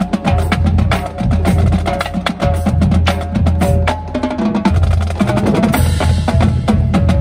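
High school marching band drumline playing a cadence: snare drums, tenor drums and bass drums with cymbals, in a fast, dense rhythm of drum strokes and stick clicks.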